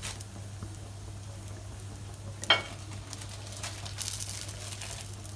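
Omelette and roti frying gently in a non-stick pan, a soft steady sizzle over a low steady hum. A short sharp click about two and a half seconds in, and a brief burst of higher hiss around four seconds.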